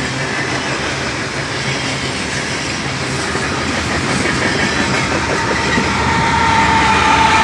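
Freight train's coal hopper cars rolling past, their wheels clicking over the rail joints with a steady rumble. Near the end a steady high whine grows louder as the train's locomotives come alongside.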